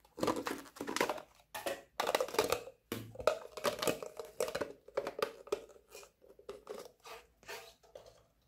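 Thin clear plastic slime container crinkling and crackling as hands squeeze and tip it, in a dense run of irregular crackles that starts suddenly and thins out toward the end.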